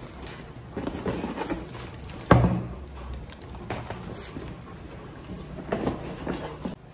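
Cardboard box being handled: scraping and rustling of the cardboard, with one sharp thump about two and a half seconds in.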